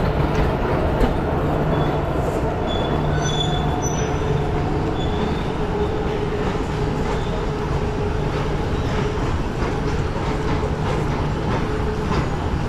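Train running on the rails with steady rumble and rattle, and a brief high wheel squeal a few seconds in.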